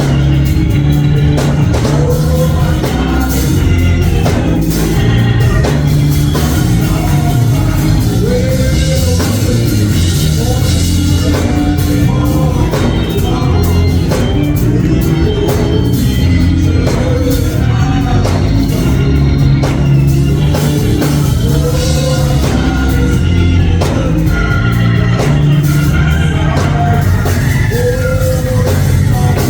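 Live gospel church music: organ and band playing with a steady beat, with voices singing.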